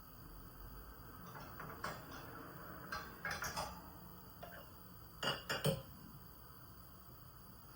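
Kitchenware being handled during cooking: scattered light clinks and knocks, with a small cluster about three seconds in and three sharper knocks a little past five seconds, the loudest.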